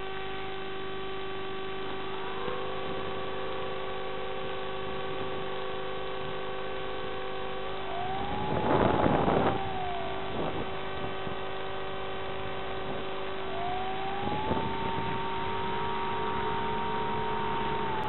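RC plane's electric motor whining as the throttle is opened and eased in steps: the pitch rises a few seconds in, climbs higher with a loud rushing burst about eight seconds in, drops back, then rises again and holds. A steady electrical hum from the FPV audio link runs underneath.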